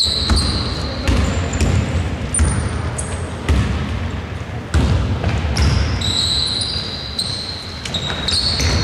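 A basketball being dribbled on an indoor court, with repeated sharp bounces, and sneakers squeaking in short high squeals on the floor as players move.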